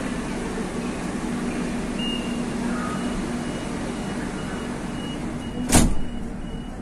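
Metro train door-closing warning: a rapid series of short high beeps starts about two seconds in, and the sliding doors shut with one loud thump near the end, over the carriage's steady hum.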